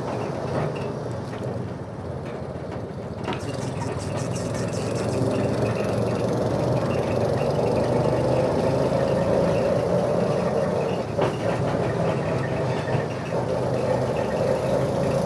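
Steady running noise of a road vehicle on the move: a low hum with a whine that drifts gently up and down in pitch, and a brief knock or two.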